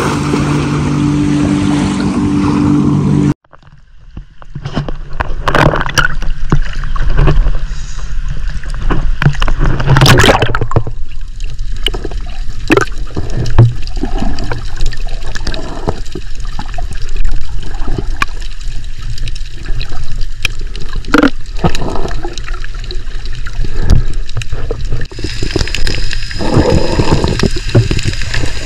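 Underwater sound recorded through a GoPro camera's waterproof housing: muffled rushing water with bubbling, gurgling and scattered sharp clicks and knocks. It begins about three seconds in, where a steady low hum above the water cuts off abruptly.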